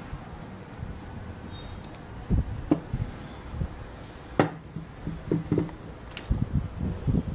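Irregular knocks and clatter of hard objects being handled, a few scattered clunks and then a busier run of them near the end.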